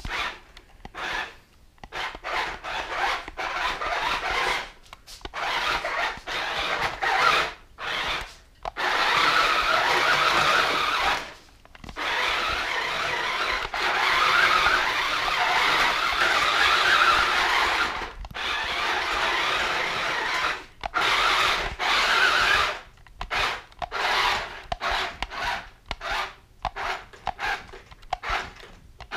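Toy remote-control tracked blaster mech driving over a hard floor: its small electric drive motors and gearboxes whirring in stop-start runs. Many short bursts come first, then longer runs of several seconds in the middle, then short bursts again near the end.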